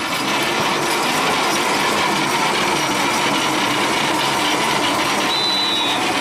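Horse-pull dynamometer truck being dragged by a team of draft horses, its mechanism giving a loud, steady grinding, rattling noise. A short high tone sounds about five seconds in.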